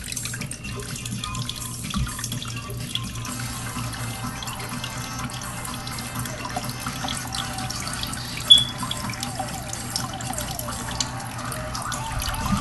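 Water running steadily with a faint trickle, over a low steady hum. A single brief, sharp high-pitched sound cuts in about two-thirds of the way through.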